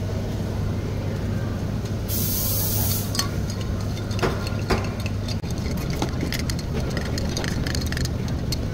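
Metal spoon stirring ice cubes in a tall glass of iced latte: many light clinks of ice and spoon against the glass from about three seconds in. A brief hiss comes about two seconds in, over a steady low hum.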